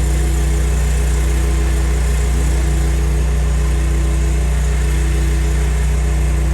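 Pressure washer's petrol engine running steadily at a constant speed, a loud, even hum.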